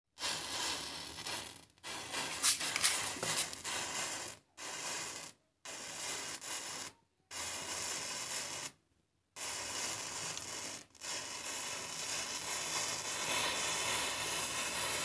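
Matchstick heads catching fire one after another in a chain, a faint fizzing hiss with scattered crackles, broken by several short silent gaps.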